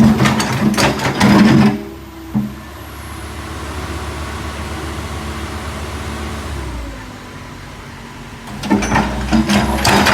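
Backhoe engine running with repeated loud knocks and clanks. These ease off about two seconds in to a steadier engine hum, then start again near the end.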